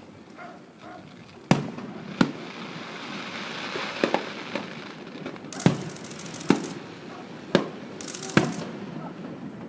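Aerial fireworks shells bursting, with about eight sharp bangs a second or so apart and crackling between them.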